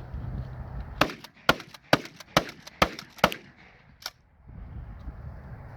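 A quick run of about seven sharp gunshots, roughly two a second, lasting about three seconds.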